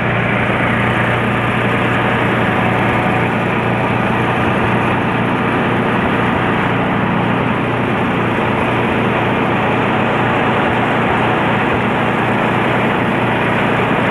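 Grass and compost chopper machine running steadily, a continuous loud mechanical noise with a constant low hum.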